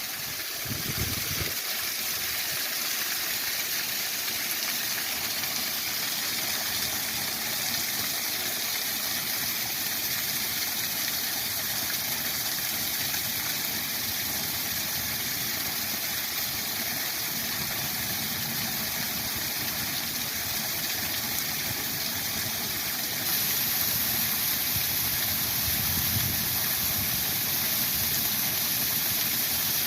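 Waterfall rushing steadily; about 23 seconds in it suddenly becomes louder and brighter.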